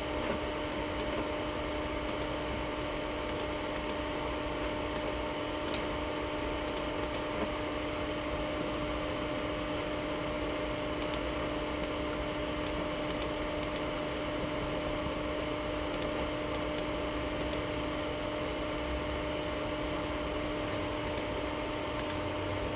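Steady low hum with faint hiss and scattered faint clicks: background noise while the radio channel sits idle between transmissions.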